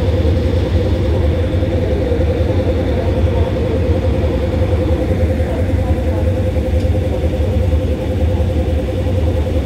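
Diesel-electric locomotive idling while stopped at a station platform: a steady low rumble with a constant hum above it.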